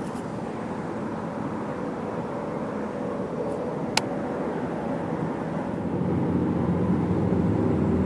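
Steady noise of road traffic, with a vehicle's engine hum growing louder over the last couple of seconds. A single sharp click about four seconds in.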